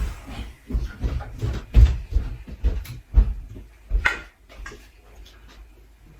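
Irregular knocks, clunks and rattles of ceiling fan parts being handled and fitted during installation. The loudest come about two, three and four seconds in, and it settles to quieter handling noise near the end.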